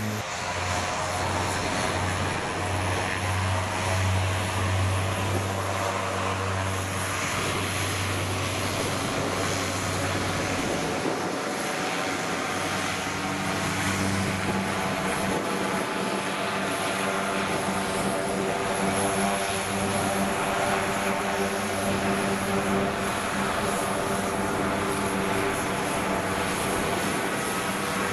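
CASA C212's twin Garrett TPE331 turboprop engines running as the aircraft taxis on the ground: a steady propeller drone with a thin high turbine whine above it. The pitch of the drone steps up about halfway through.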